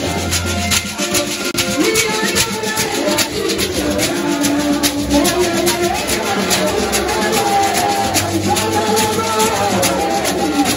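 Several shekere, gourd rattles wrapped in bead nets, shaken in a fast, steady rhythm over music with sustained melodic lines.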